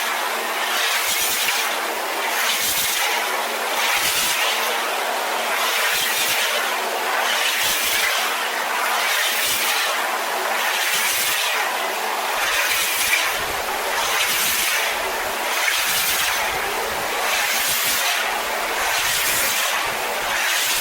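Pressure washer spray hitting corrugated barn tin: a loud, steady hiss that swells and eases in a regular rhythm a little more than once a second, with a steady hum under it.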